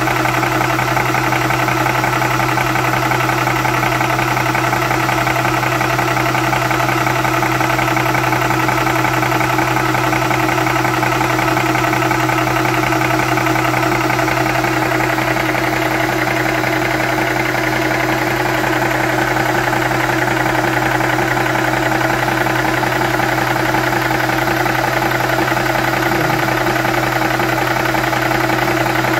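Wolf 300 bar portable high-pressure air compressor running steadily with its cooling fan, a constant mechanical hum, as it pumps air into a PCP air rifle's reservoir toward a 290 bar fill.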